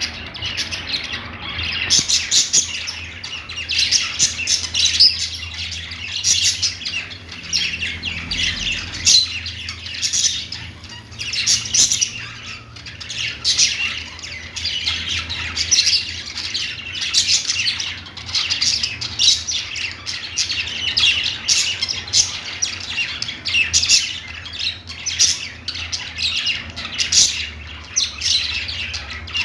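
Pet budgerigars chattering and warbling nonstop, a dense run of quick chirps and squawks, over a faint steady low hum.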